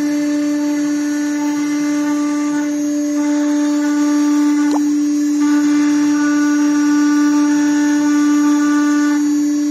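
The 5.5 kW spindle of a combined CNC router and plasma table running at a steady pitch while its cutter engraves letters into a panel. Higher tones from the axis drive motors stop and start as the head moves between strokes.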